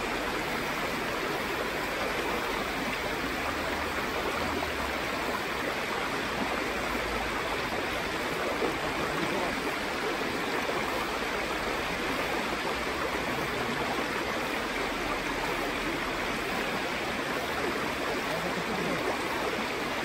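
Mountain stream flowing steadily, an even rush of water with no breaks.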